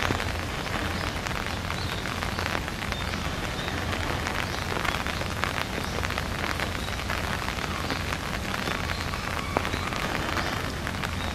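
Steady rain falling on the surfaces around, with many small, closely spaced drop ticks over a low steady rumble.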